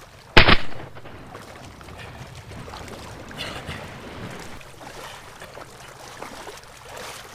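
A single shotgun blast about half a second in, sharp and loud with a brief tail, followed by a steady outdoor background hiss.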